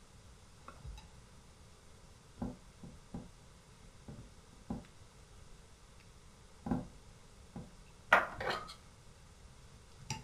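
Scattered soft knocks and light clinks of dishes being handled on a table as peeled bananas are picked off a small plate and laid into a hollowed-out sponge cake on a ceramic plate. The loudest is a quick cluster of clinks about eight seconds in.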